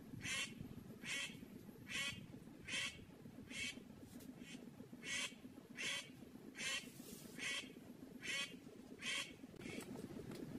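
A bird giving a short raspy call over and over, a little more than once a second, over a faint steady background noise.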